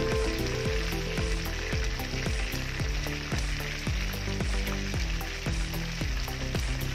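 Breaded pork pieces sizzling steadily as they fry in hot oil in a pan. Background music with a steady beat plays underneath.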